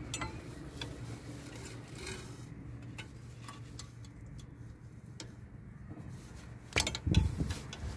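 Light, scattered clicks and taps of a gloved hand and a pick tool working the left rear ABS wheel speed sensor connector free behind the hub. A quicker run of louder clicks comes about seven seconds in.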